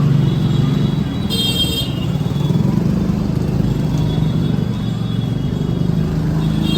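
Busy street traffic: motor engines running close by, with a vehicle horn honking about a second in and fainter horns later.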